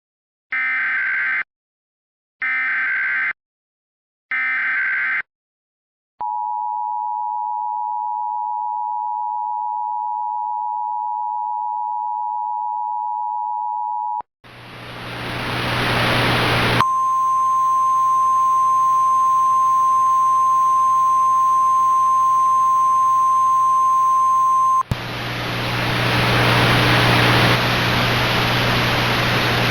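Emergency Alert System alert tones: three short bursts of warbling data tones (the SAME header), then the two-tone attention signal held steady for about eight seconds. Loud hissing static follows, with a single steady NOAA Weather Radio warning tone over it for about eight seconds, then static alone near the end.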